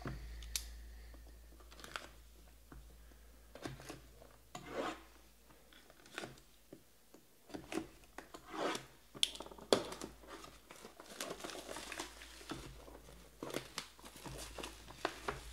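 Plastic shrink wrap being slit with a box cutter and torn and crinkled off sealed cardboard boxes: scattered short scratches, rips and crackles of plastic, with a few sharp knocks as the boxes are handled.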